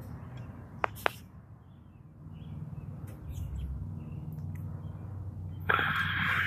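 Toyota 86 / Scion FR-S flat-four boxer engine idling through an aftermarket header and exhaust, a low steady rumble from the tailpipes. Two short sharp ticks come about a second in, and a louder rushing noise rises near the end.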